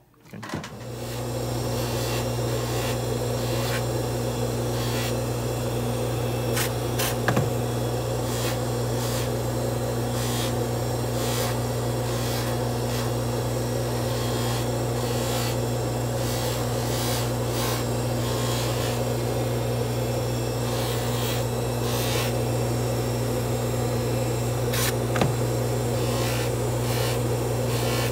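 Bench polishing motor starting up and running steadily, a constant hum with a rushing friction sound as a hollow gold bangle is held against the spinning buffing wheel. A couple of light ticks sound partway through.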